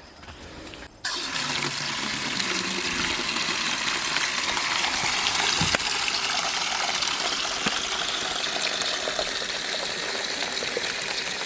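Garden hose turned on about a second in, then running steadily with a loud rush of water.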